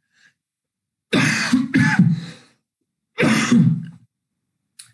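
A man clearing his throat and coughing in three short bursts: two close together, then one more about a second later.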